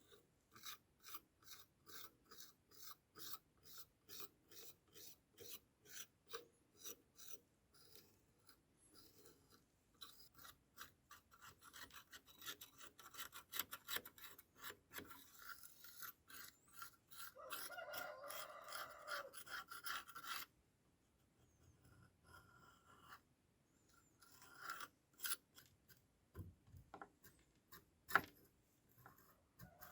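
Faint hand scraping of rust from a steel knife blade with an abrasive, in even strokes of about two to three a second. About a third of the way through the rubbing turns faster and continuous, with a brief squeal, before thinning to a few scattered strokes near the end.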